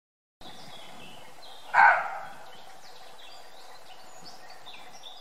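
A deer gives one short, loud bark about two seconds in, over steady woodland birdsong with many high chirps.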